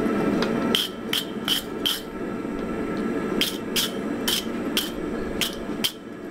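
Hand hammer striking a glowing hot Damascus-bit axe head on an anvil: about ten blows in two runs with a short pause between, each with a short metallic ring.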